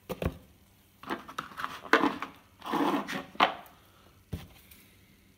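Spark plug, feeler gauge and hand tools being handled on a workbench while the plug gaps are set: a few light clicks and knocks, with a brief rubbing noise near the middle.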